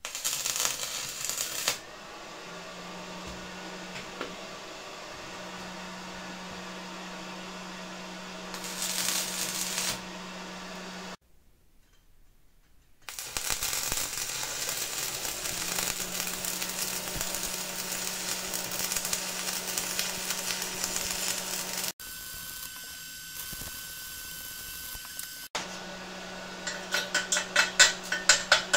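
Stick (MMA) welding at 70 amps with Kjellberg electrodes: the arc crackles and hisses as steel brackets are tacked onto a steel tube, breaking off for a couple of seconds about eleven seconds in. Near the end come sharp knocks, about three a second, of a chipping hammer knocking the slag off the fresh weld.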